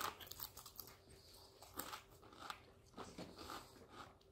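Faint, scattered crunches of Doritos tortilla chips being chewed.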